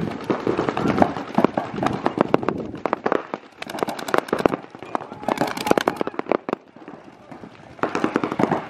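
Paintball markers firing: many sharp pops of shots, with two fast strings of rapid fire about halfway through.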